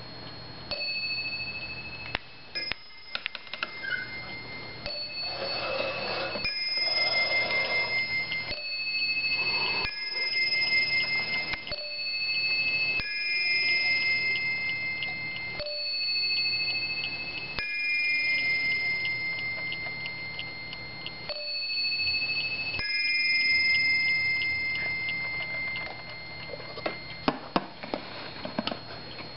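Warmink 8-day bracket clock striking on its brass bell: a series of hammer blows at a few different pitches, each note ringing on for a second or more, with the movement ticking underneath. A few sharp clicks come near the end.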